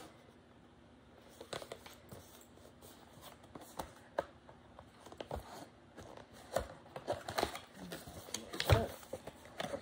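Cardboard product box being handled and its flap opened: scattered taps, scrapes and rustles of card, with a sharper knock near the end.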